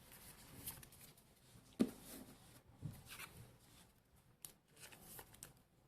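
Trading cards being handled: faint rustling and light taps of cards sliding against each other, with one sharper click about two seconds in.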